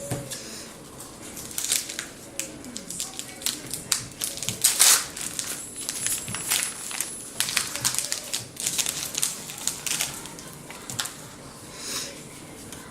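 Foil Pokémon booster pack wrapper crinkling and tearing open by hand: a dense run of irregular sharp crackles.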